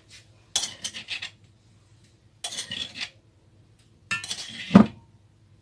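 A utensil scraping and stirring chickpeas with spices in a bowl, in three short bursts; the last ends in a sharp knock against the bowl.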